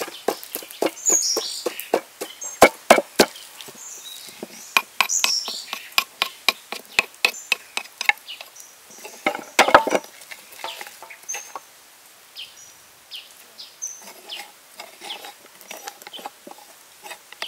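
Wooden pestle pounding chili paste in a wooden mortar, sharp knocks about three a second, then softer scraping as a spoon works the paste out for the last several seconds. Birds chirp in the background.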